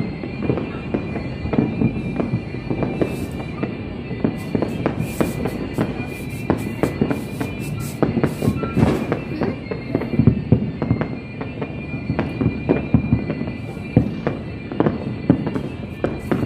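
Fireworks and firecrackers going off in a continuous barrage: many rapid, irregular pops and bangs overlapping, thickest about halfway through.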